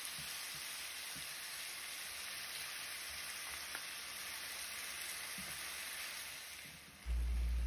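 Oxtail pieces sizzling steadily as they sear in oil and burnt-sugar browning in a pan, fading away near the end.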